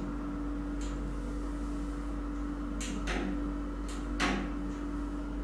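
Push-fit water-cooling hose connector of a YAG laser handpiece being plugged in: a few plastic clicks and knocks, the loudest about four seconds in, a click that signals the hose has latched. A steady hum runs underneath.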